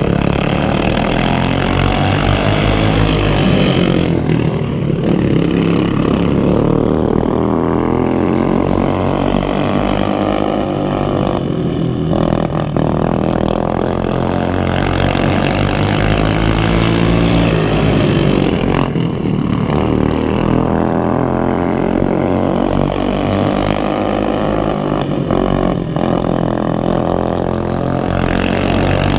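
Several racing lawnmower engines running hard together, their pitches rising and falling over one another as the mowers accelerate and back off through the laps.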